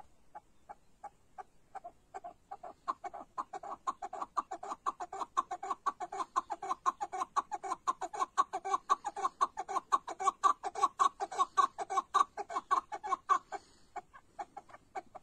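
Chukar partridge calling: a run of short, clucking chuck notes that starts slow and spaced, speeds up into a fast, even chatter of about five notes a second, and breaks off near the end.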